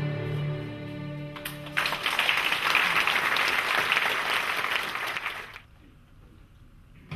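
A held music chord fades out. About two seconds in, audience applause starts and runs for about four seconds, then stops suddenly.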